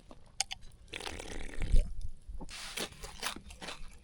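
Someone biting and chewing crunchy food, a few crackly crunches in a row.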